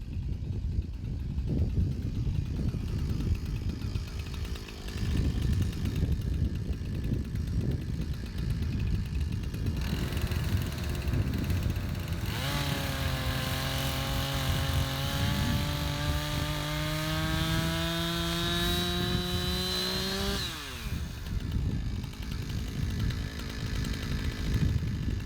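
A Husqvarna 460 Rancher two-stroke chainsaw run at full throttle for about eight seconds in the middle, its pitch creeping slowly upward as it cuts, then falling away sharply when the throttle is released. Before and after, only a low rumbling noise.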